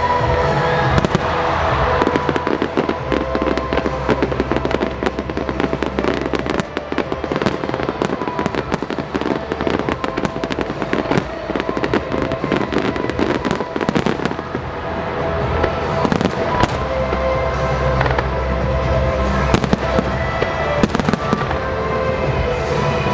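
Fireworks going off in a dense, rapid stream of cracks and pops, over loud music with held tones and a low bass.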